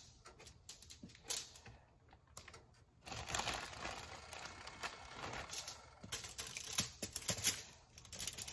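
Plastic bag crinkling and rustling as French toast sticks are taken out of it, with small irregular clicks; sparse at first, then busier from about three seconds in.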